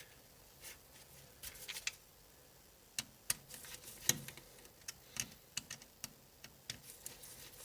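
Light, irregular clicks and ticks of a PH000 precision screwdriver working a tiny screw out of the metal bracket over an iPhone 6s's display connectors.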